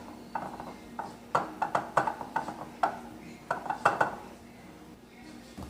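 Irregular light clinks and taps against a bowl as a quail is worked in the flour, about a dozen over four seconds, then they stop.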